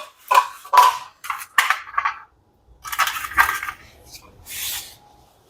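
Handling clatter: a handful of short, separate knocks and rattles of hard parts being moved about.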